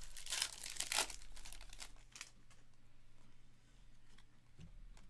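A trading card pack's wrapper being torn open and crinkled by hand. The sound dies down after about two seconds.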